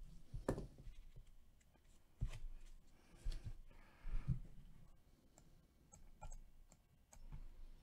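A few light knocks and scattered faint clicks at a desk, spaced irregularly a second or so apart, with small sharp clicks in the second half.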